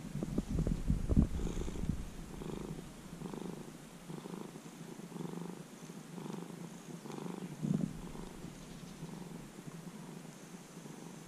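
Orange-and-white cat purring close up, the purr swelling and fading about every 0.7 s with each breath. A few louder low thumps come in the first couple of seconds.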